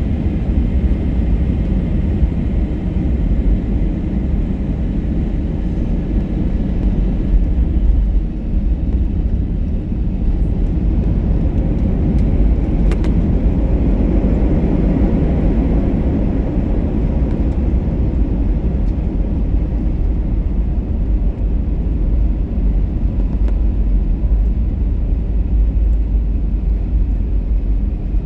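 Airbus A321 cabin noise during the landing: a steady low rumble of the engines and rushing air, heard inside the cabin, swelling slightly about halfway through. A brief click sounds about 13 seconds in.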